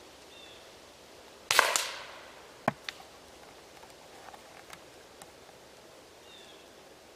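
Air Venturi Avenger .25 caliber PCP air rifle firing once, a sharp crack about one and a half seconds in, followed about a second later by two short clicks.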